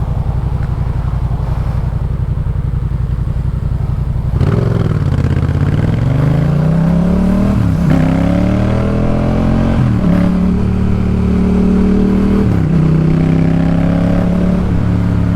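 Yamaha MT-07's parallel-twin engine through a Jeskap K4 full exhaust. It runs at a low, steady, pulsing idle, then about four seconds in pulls away and accelerates, its note rising and breaking three times as it shifts up through the gears.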